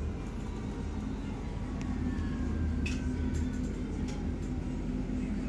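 Bustech ZDI bus driving, heard from inside the cabin: a steady low engine hum with a few light rattles and clicks from the body and fittings.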